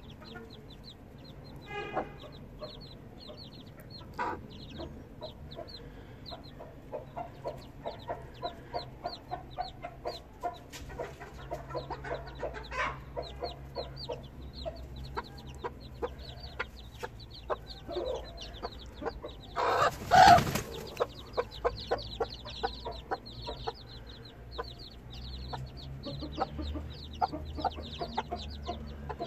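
Three-day-old chicks peeping continuously in short, high, falling notes while their broody İspenç hen clucks low in quick runs. About two-thirds of the way through, a loud harsh burst of about a second stands out.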